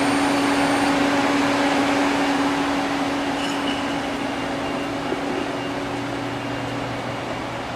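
Citizen M32 CNC Swiss-type lathe running with its sub spindle turning: a steady mechanical hum with one steady low tone, slowly getting quieter.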